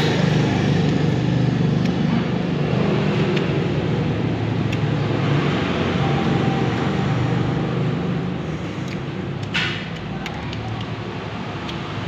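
Steady low rumble of road traffic, easing slightly near the end, with one short sharp click about three-quarters of the way through.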